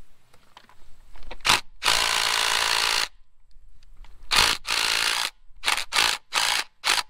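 A cordless power tool, such as a drill or an impact driver, run in short bursts on rusted bolts in an engine block. There are two runs of about a second each, then several quick pulses on the trigger near the end.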